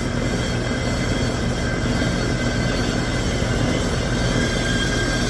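Heat pump outdoor unit running, a steady hum with a thin high whine over it. It sounds rough because the system is low on refrigerant charge, still under factory charge while refrigerant is being added.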